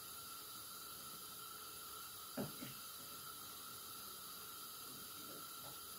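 Quiet room tone: a faint steady hiss with a thin high hum, and one soft knock about two and a half seconds in.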